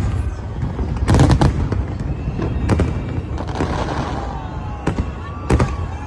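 Aerial fireworks bursting: a quick cluster of sharp bangs about a second in, then single booms spaced a second or two apart, with a stretch of crackling in the middle.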